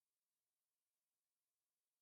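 Digital silence: only a faint, steady hiss at the noise floor.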